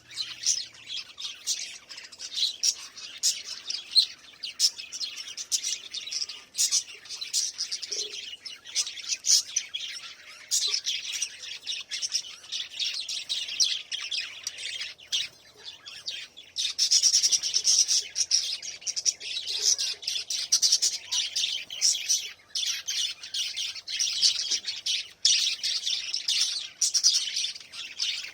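A group of small pet parrots chirping and chattering together, dense and continuous, with many quick sharp notes, growing louder past the middle.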